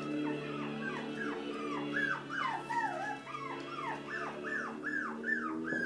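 Puppy whimpering: a long run of short high-pitched yelps, each falling in pitch, about three a second.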